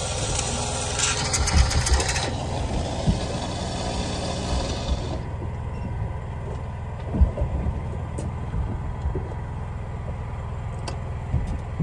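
Boat engine running steadily with a low rumble. A short burst of hiss and clatter comes about a second in, and a single thump about halfway through.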